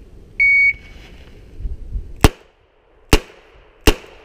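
A shot timer's single electronic start beep, then three double-action revolver shots a little under a second apart, the first coming about a second and a half after the beep.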